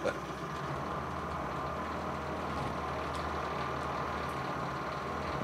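Stepper-driven milling machine axis buzzing steadily as it oscillates under closed-loop encoder control: the PID proportional gain is set far too high (P of 1000), causing violent vibration on the axis.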